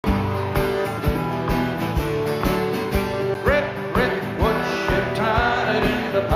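Country song with acoustic guitar over a steady beat.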